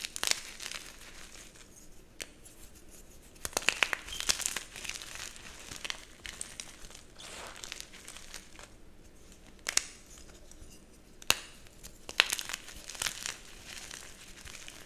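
Dyed gym chalk blocks being crushed and crumbled, a crunchy but soft crumbling that comes in several bursts of crackling, with two sharp single snaps in between.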